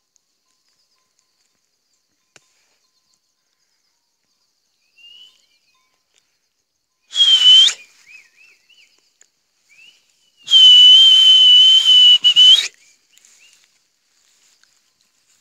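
A loud whistle held on one steady high pitch, first briefly and then for about two seconds, with breath noise around it and faint short chirping notes in between.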